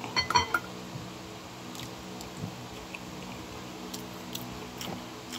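A metal spoon clinks against the plate a few times at the start. Then a mouthful of rice and dinuguan (pork blood stew) is chewed close to the microphone, with soft wet mouth clicks over a steady low hum.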